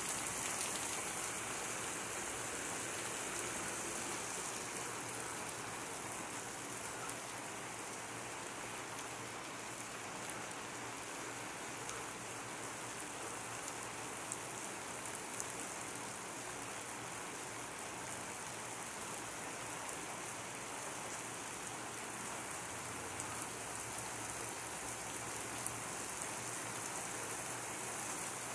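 Heavy rain falling steadily on pavement and roofs, an even hiss with a few sharper drop ticks.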